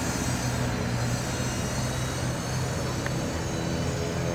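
Turbofan jet engines of an Embraer ERJ-195 airliner running steadily, a constant whine over a low hum and rushing noise.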